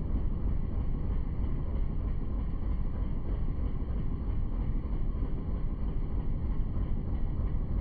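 Steady low rumble of a boat under way, with wind on the microphone.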